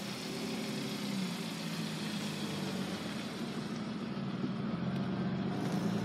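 A car engine idling: a steady low hum.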